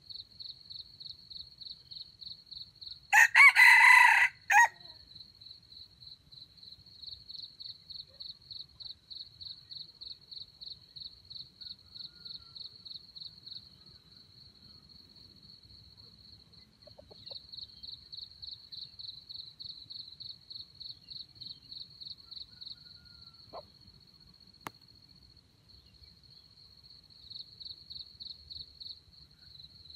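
A red junglefowl rooster crows once, a short crow of about a second and a half, about three seconds in. Under it, crickets chirp in a high pulsing trill that pauses now and then.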